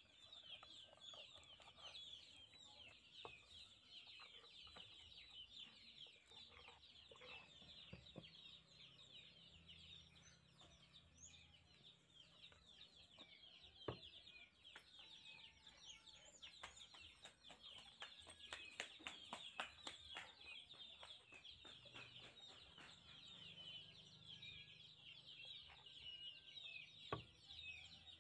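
Chickens peeping, a faint dense chatter of short high chirps throughout, with a few sharp clicks in the middle and near the end.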